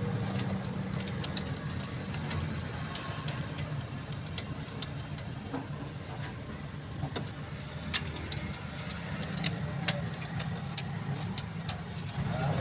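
Sharp metallic clicks and taps from a tool working on the exposed rocker arms of a car's cylinder head, a few louder ones in the second half, over a steady low hum.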